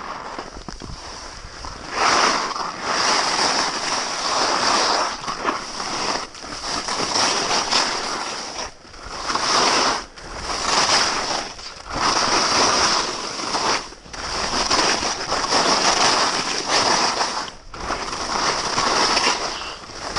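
Skis carving down a groomed run, their edges scraping and hissing across the snow. The hiss swells and fades with each turn, about every one and a half to two seconds, and is quieter for the first couple of seconds.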